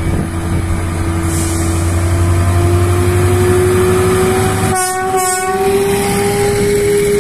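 Class 73/9 electro-diesel locomotive pulling a test train away, its engine running with a steady tone that slowly rises in pitch as it gathers speed, over a constant low hum. Two short sharp sounds come close together about five seconds in.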